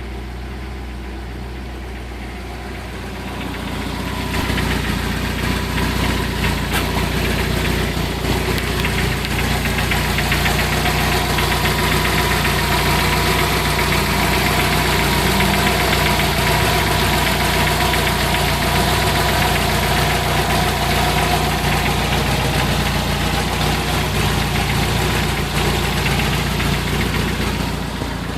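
1994 Jeep Wrangler's 2.5-litre inline four-cylinder engine running with knocking and rattling at low rpm. It gets louder about four seconds in and eases off again near the end.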